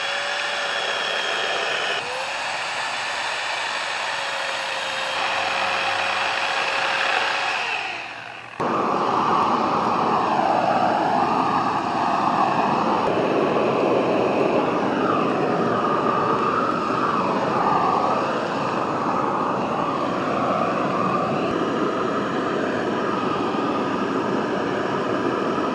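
Handheld gas flamethrower torch running with a steady rushing flame. An abrupt change about eight and a half seconds in: from there it is louder, with a wavering pitch.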